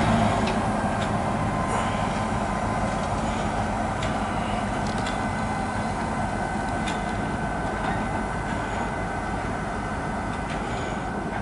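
Diesel-electric freight locomotive moving slowly while backing its train along a siding: a steady engine and wheel rumble with a faint steady high tone and a few scattered clicks, gradually getting a little quieter.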